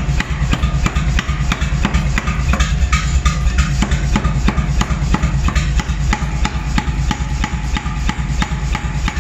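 Power hammer forging a red-hot adze blank between its dies. Fast, regular blows come about four to five a second over a steady low machine hum.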